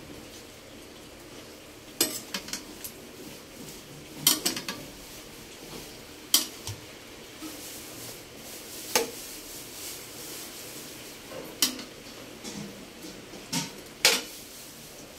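Metal ladle scraping and clinking against a stainless-steel wok and a bowl as soup is ladled out: scattered sharp clinks, about seven, some coming in quick clusters.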